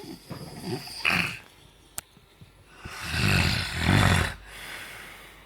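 Snoring: a short snore about a second in, then a long, loud snore lasting over a second from about three seconds in. A sharp click sounds between them.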